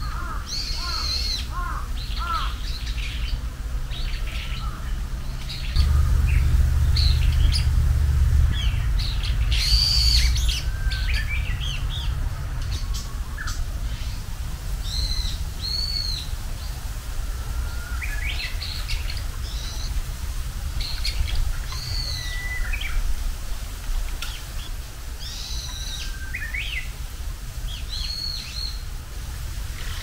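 Wild songbirds chirping and calling, with many short notes and brief phrases scattered throughout. Under them runs a low rumble that grows louder from about six to twelve seconds in.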